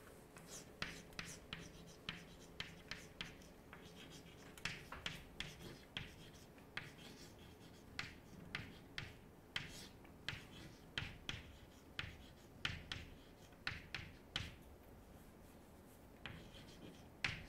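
Chalk writing on a chalkboard: a faint, irregular run of short taps and scrapes as letters are written, with brief pauses between words.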